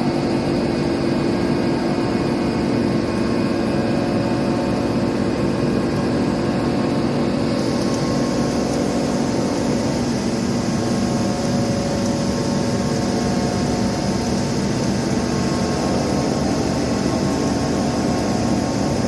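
Alesamonti Milling M1 moving-column CNC milling machine running: a steady mechanical hum with several held whining tones. About seven and a half seconds in, a higher hiss joins and stays.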